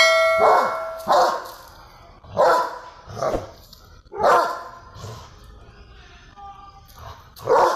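Young Doberman pinscher barking: a string of sharp single barks about a second apart, a lull of a couple of seconds, then one more bark near the end. A bright ringing tone sounds under the first bark.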